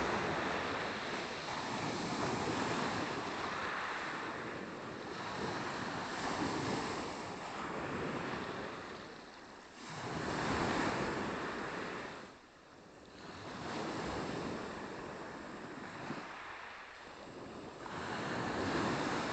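Small Black Sea waves washing onto the shore, the surf swelling and falling away every few seconds.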